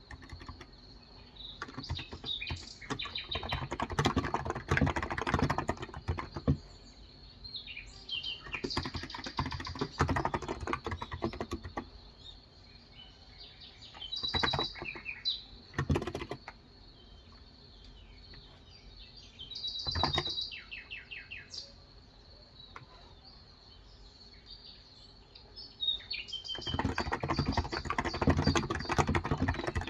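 Typing on a Cox Endeavor electro-capacitive (Topre-style) 35 g tenkeyless keyboard, in five bursts of fast keystrokes with short pauses between. Birds chirp in the background throughout.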